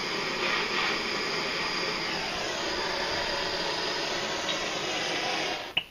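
Handheld propane torch with a trigger-start head hissing steadily with its flame lit, shut off near the end, followed by a sharp click.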